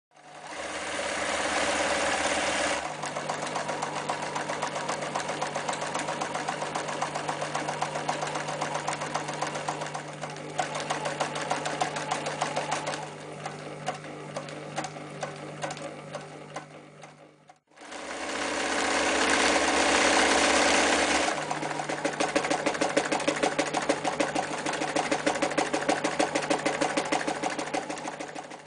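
Elna Stella TSP electric sewing machine stitching through thick layers of denim: the motor runs with fast, even needle strokes. It stops for a moment about two-thirds of the way through and starts again, and each run is loudest in its first few seconds.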